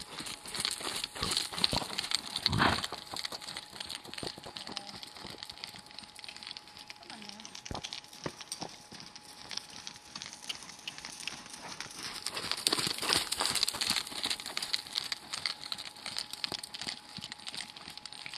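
Irregular crackling and rustling noise on the microphone, louder about a second in and again about twelve seconds in, over the soft hoofbeats of a horse moving on a dirt arena.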